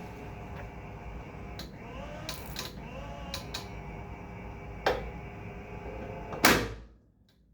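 Energised automatic transfer switch humming steadily, with a few light clicks. About six and a half seconds in there is one loud clunk, and the hum stops.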